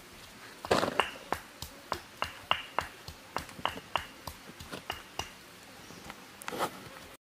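Irregular sharp clicks and small wet tearing sounds from hands and a knife working in a raw plucked chicken as it is gutted, with a louder rustle about a second in and another near the end.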